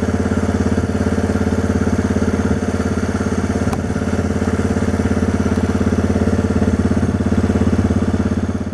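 ATV engine idling steadily with an even, rapid pulse.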